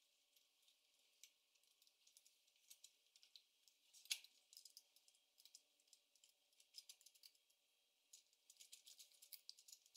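Faint, irregular clicks and light rattles of hands working the housing of an all-in-one solar street light as its inner cover is opened, with one sharper click about four seconds in.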